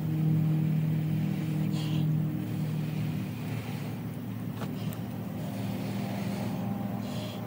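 Breath blown in short puffs into a smoking pine-needle tinder bundle that holds a friction-fire ember, coaxing it toward flame; one puff about two seconds in and another near the end. Under it runs a steady low drone, loudest in the first couple of seconds.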